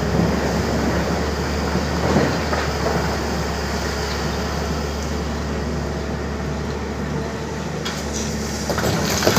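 Tata Hitachi excavator's diesel engine running steadily, a continuous mechanical rumble with a low hum, and a brief louder sound about two seconds in.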